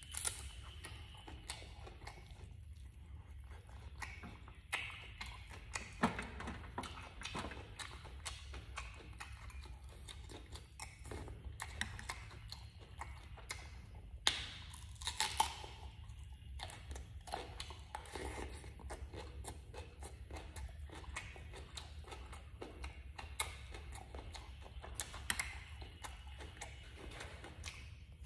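Close-up eating sounds: a person chewing and biting food, with scattered crunches and wet mouth clicks, the loudest bites about six seconds in and again around the middle, over a steady low hum.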